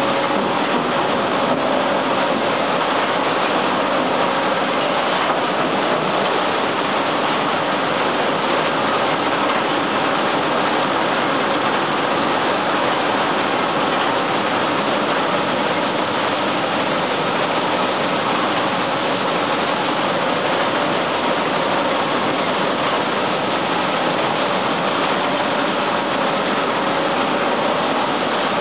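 Buckwheat processing line running: a sieve separator shaking buckwheat over its mesh, making a steady dense rush of grain over machine noise.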